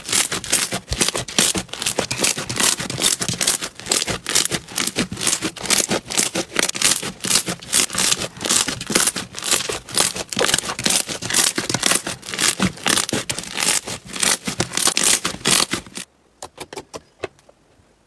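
A large slime being kneaded and squeezed by hand, with a dense run of crackling, popping clicks. It stops abruptly about sixteen seconds in, and a few sparse clicks follow.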